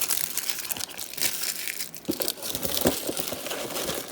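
Thin plastic LEGO parts bag crinkling as it is handled, with a few light knocks about halfway through.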